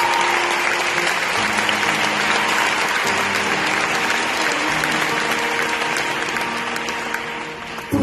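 Audience applauding loudly over an acoustic guitar playing held notes; the applause thins out near the end.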